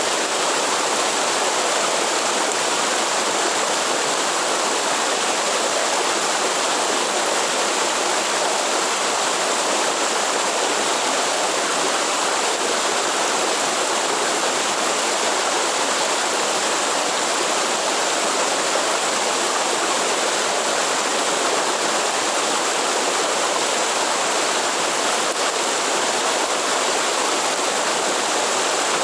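Waterfall rushing steadily, an even, unbroken noise of falling water.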